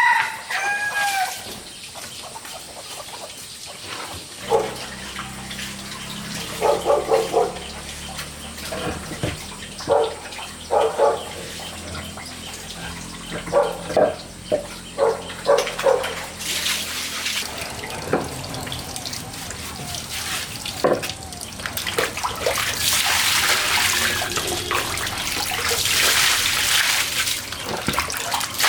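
Chickens clucking in short bursts through the first half, then water running and splashing steadily through the second half.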